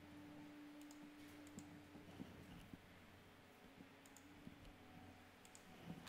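Near silence: a low steady hum with a handful of faint, scattered clicks from working a computer mouse and keyboard.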